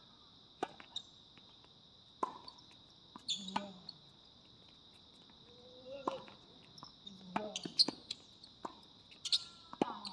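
Tennis rally on a hard court: a serve, then a series of sharp racket strikes and ball bounces, coming more often in the second half. A steady high-pitched insect chorus runs underneath throughout.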